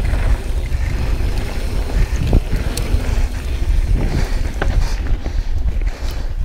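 Wind buffeting the helmet-camera microphone as a Yeti SB6c mountain bike rolls down a dirt trail: a steady low rumble with a few sharp knocks and clicks from the tyres and bike over rocks.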